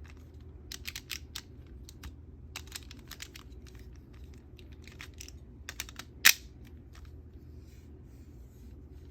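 Scattered clicks and small knocks of hard plastic toy buckle parts being handled and taken out of their packaging, with one sharper, louder click about six seconds in.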